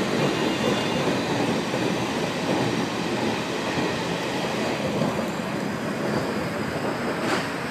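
KiHa 47 diesel railcar running at speed through a tunnel, heard inside the carriage: a steady, dense rumble of wheels on rails and the diesel engine, with a sharp knock at the very start and another near the end.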